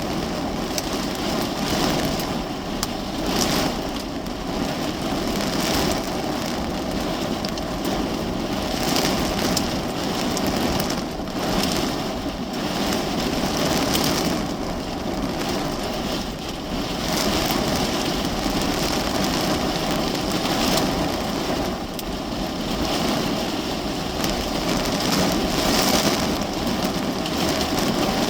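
Heavy rain falling steadily on a car's roof and windows, heard from inside the cabin, with scattered sharper hits.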